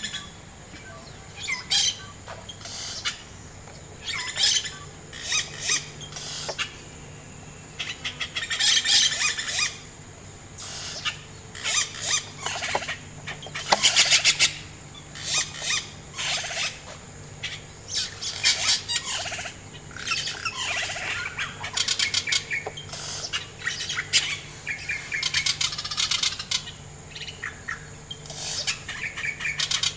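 Birds calling and chirping again and again, in short irregular calls, over a steady high-pitched insect drone.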